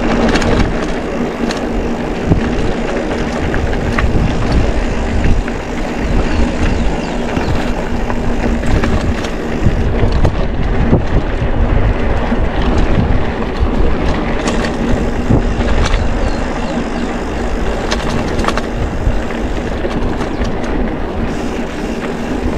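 Wind rushing over the camera microphone and mountain-bike tyres rolling on a dirt road during a ride, with occasional sharp clicks and rattles from the bike.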